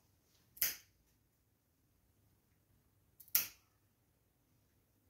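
Scissor-type pet nail clippers snipping through a cat's claws: two crisp snips, about half a second in and again about three seconds in.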